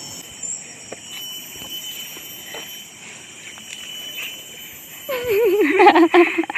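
Forest insects keep up a steady high-pitched drone, with a few faint taps. About five seconds in, a person's voice breaks in loudly with a wavering, sung tone.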